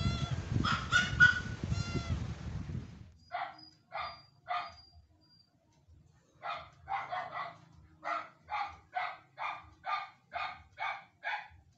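A small dog barking in a series: three barks, a short pause, then about a dozen more at roughly two a second. Before the barking, for about three seconds, loud rustling and knocking.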